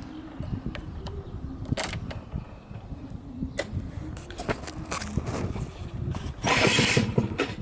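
Yamaha Champ RS 50cc two-stroke scooter being started: scattered mechanical clicks and rattles over a low rumble, then the engine fires loudly near the end.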